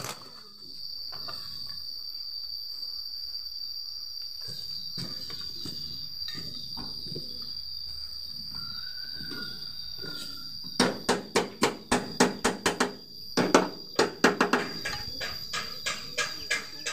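A steady high-pitched insect trill runs in the background. About eleven seconds in, a rapid, irregular series of loud hammer blows on metal begins, around two to three strikes a second, each with a short ring.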